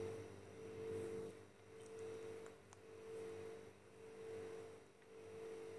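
A faint humming tone that swells and fades about once a second, with a tiny tick or two.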